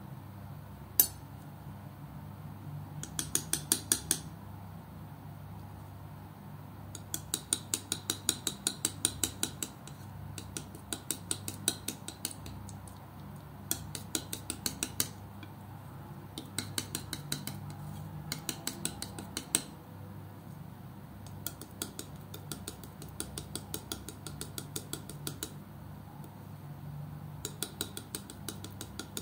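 Metal palette knife working thick acrylic paint on a flat surface: repeated runs of quick, sticky clicks as the blade presses, spreads and folds the paint, with one sharper tap about a second in.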